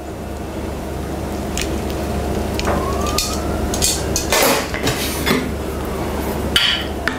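Metal tongs clinking and scraping against a ceramic casserole dish and plate as a braised chicken leg is lifted out and set down, with the loudest clatter a little past halfway, over a steady low hum.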